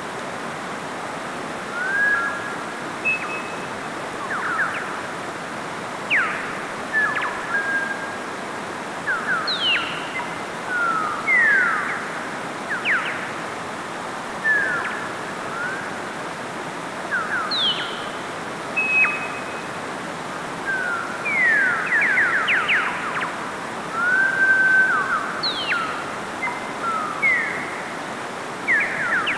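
Mountain stream rushing steadily over rocks, with birds calling over it: short clear whistles and quick rising and falling chirps, scattered irregularly throughout.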